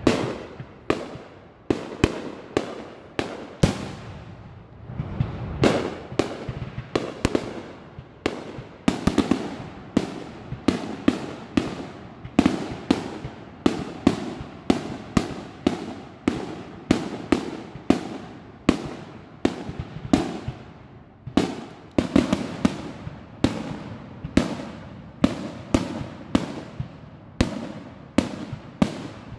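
Aerial fireworks shells bursting in rapid succession, about one to two bangs a second, each bang trailing off in echo.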